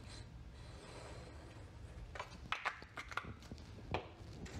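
Grey cardstock being handled and set down on a work surface: a few soft rustles and light taps, bunched around the middle and again near the end, over a faint steady low hum.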